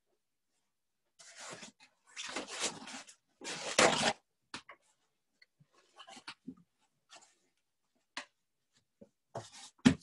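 Paper towels rustling and crinkling as they are spread out on a table, in three bursts over the first four seconds. Then scattered light taps and a louder knock near the end.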